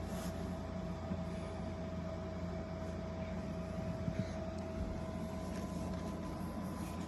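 A steady mechanical hum with a constant faint whine over it, unchanging throughout, and a couple of faint clicks about four seconds in.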